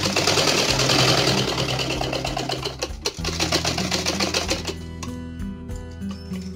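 Black domestic sewing machine stitching through fabric, a rapid, even clatter of the needle mechanism that stops about two-thirds of the way through. Background music plays throughout.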